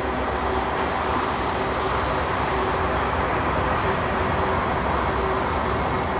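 Union Pacific diesel-hauled grain train running by: steady mechanical noise of the locomotives and rolling cars, with a few faint steady tones over a deep low rumble.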